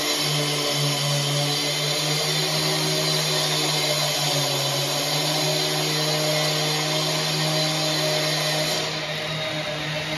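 Petrol disc cutter (cut-off saw) running steadily with an even, unbroken engine note while cutting the concrete floor over the grain-drying duct openings.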